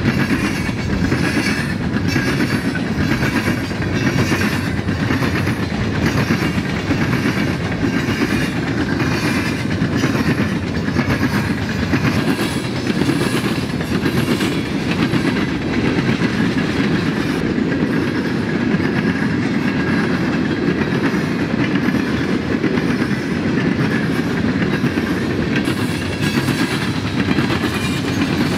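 A freight train of loaded coke hopper cars rolling past, with the wheels clicking over the rail joints in a steady, repeating rhythm.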